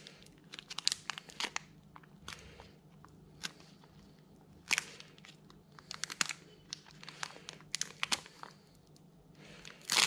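Foil wrapper of a Pokémon booster pack crinkling and tearing as fingers pick it open, in scattered irregular crackles, with a sharper crackle about halfway through and a louder burst of crinkling at the very end.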